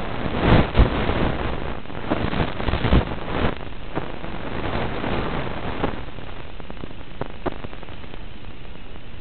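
Rushing, hissy noise with crackles through the first few seconds, then a steadier hiss: wind and motor noise picked up aboard a Mini Recruit RC plane in flight, heard through the analog FPV video link.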